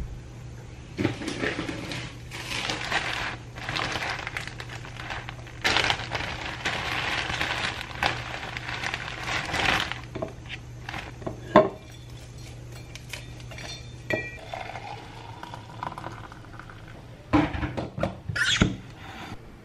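A plastic bag rustling in long stretches as dried tea is picked out of it and dropped into a stainless-steel insulated jar. There is a sharp click about halfway, and near the end a few knocks and clinks from the jar and its lid.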